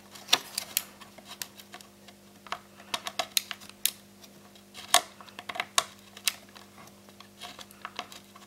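An LVDS ribbon-cable plug being pushed into and pulled out of its socket on a TV circuit board, again and again, making irregular small clicks and scrapes. The plug is being reseated several times to wipe dirt off the connector's contacts, the cause of a bad connection.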